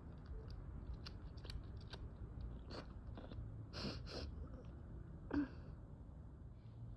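Quiet breathing and small nose and mouth sounds of an allergy sufferer between sneezes: scattered little clicks and short airy sniffs, with one louder brief catch of breath about five seconds in.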